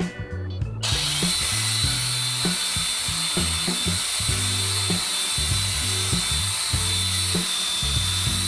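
DeWalt DCG409 18V XR brushless angle grinder switched on about a second in and running at no load, a steady high whine over a hiss, under background music.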